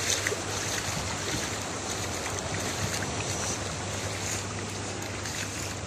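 Small waves washing in and out over the shallows at the water's edge, a steady hiss.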